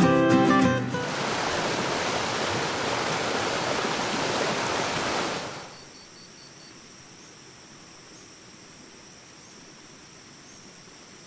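Acoustic guitar music ends about a second in, followed by the steady rush of a waterfall. The rush cuts off sharply after about five seconds, leaving only a faint hiss.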